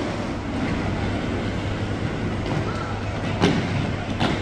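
Roller-skate wheels rumbling steadily as they roll over the rink floor, with a couple of short knocks in the second half.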